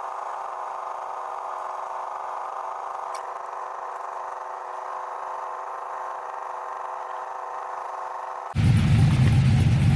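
Steady hum of a truck idling with its 9-blade electric radiator fans running. About 8.5 seconds in it changes abruptly to a much louder, deep rumble.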